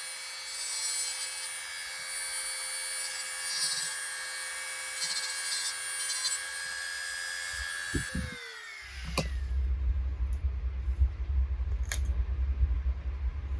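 Small high-speed rotary tool running steadily with a high grinding hiss as it cuts into die-cast metal, winding down and stopping about eight seconds in. After it, a low rumble with scattered knocks.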